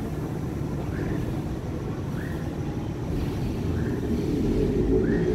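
Electric metro train pulling away from the platform after its doors close: a steady low rumble with a short rising chirp about every second and a half, and a rising motor whine building near the end as the train gathers speed.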